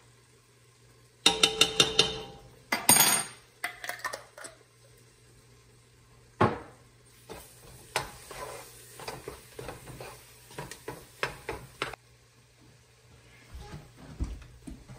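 Metal utensils clanking against a pot and containers in a quick run of sharp knocks, then a spoon stirring and scraping through onions cooking in a hot roux, with a light sizzle.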